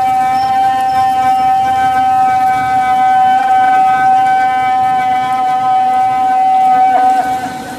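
A loud siren sounding one long, steady tone with overtones. It wavers briefly and stops about seven seconds in.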